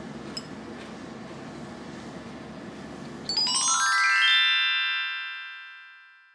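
A steady low background hiss, then about three seconds in a quick descending run of bright chime-like notes rings out and fades away slowly: a musical transition sting.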